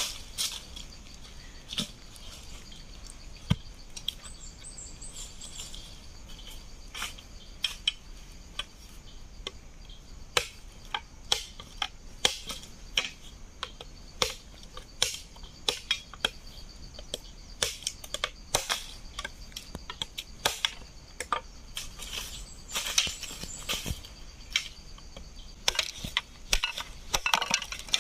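Machete chopping a green bamboo pole against a wooden log: sharp, irregular strikes, roughly one every second. A steady high-pitched insect drone runs underneath.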